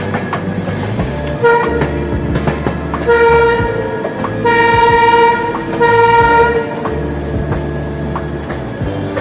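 Train horn sounding on one steady pitch: a short toot, then three longer blasts in a row, over the running rumble of the moving train.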